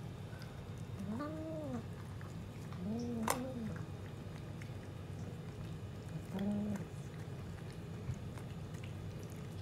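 A cat making three short, low calls that rise and fall in pitch: about a second in, about three seconds in, and about six and a half seconds in. A sharp click comes at about three seconds.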